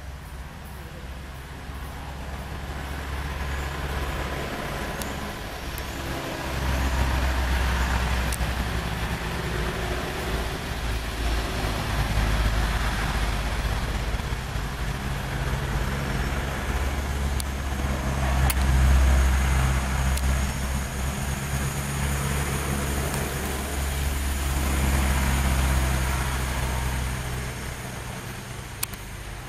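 Motor vehicle engines running as road traffic: a low engine hum that swells louder several times.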